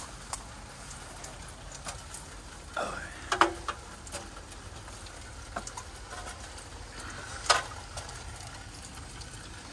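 Aluminium step ladder and metal brush pole being handled and set up: scattered clicks and clanks over a steady hiss, with a brief squeak and knocks about three and a half seconds in and the sharpest metal knock near the end.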